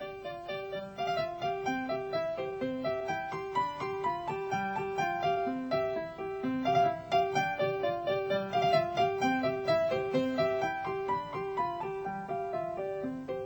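Instrumental piano music: a brisk tune over a steadily repeated accompaniment note and recurring bass notes.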